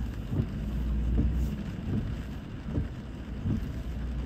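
Inside a car driving in heavy rain: a steady low rumble of the road and engine under the hiss of rain on the car, with the windshield wipers giving a soft thump about every 0.8 seconds.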